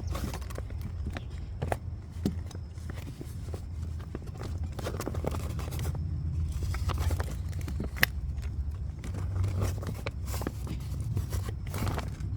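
Hand pop-rivet gun being squeezed repeatedly to set a rivet through a washer, tarp and velcro, with irregular clicks and clacks and one sharper click about eight seconds in. A steady low rumble runs underneath.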